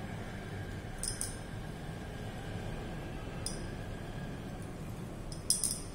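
Light glass clinks as a conical flask is swirled under a burette tip: a pair about a second in, one at around three and a half seconds, and a quick cluster near the end, over a steady low hum.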